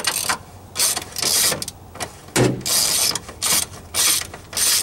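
Ratchet clicking in short bursts, about once or twice a second, as the last of three upper strut-mount bolts on a Honda Civic front strut is backed off. A dull knock comes about halfway through.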